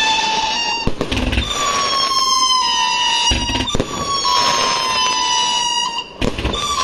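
208-shot, 1.2-inch fireworks battery (cake) firing whistling shots: loud whistles, each about two seconds long and falling slightly in pitch, follow one after another, with sharp launch pops and thumps between them.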